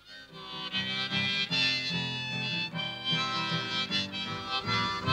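Harmonica and strummed acoustic guitar playing a folk song's instrumental introduction; the harmonica holds long, sustained chords over the guitar's steady strumming.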